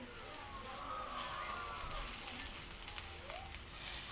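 Skewered chicken hearts sizzling on a wire grill over glowing charcoal, with a few crackles from the coals.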